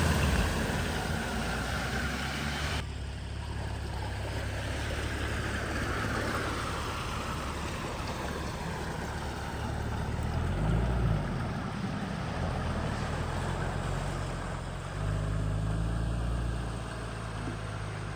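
A motor vehicle's engine running low and steady, swelling briefly twice as it picks up.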